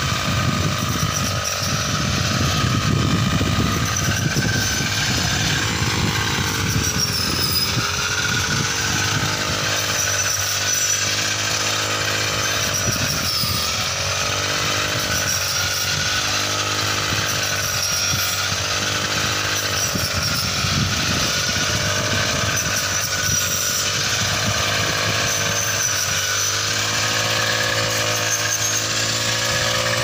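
Backpack-mounted petrol engine of a shaft-driven paddy reaper running at high speed, its cutting head slicing through rice stalks. The engine note dips and recovers again and again as the blade takes the load of the crop.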